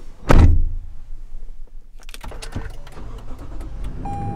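Toyota Land Cruiser 200 Series driver's door pulled shut from inside with a solid thud and a short low ring. A few light clicks and rustles follow, and near the end a steady electronic beep tone starts.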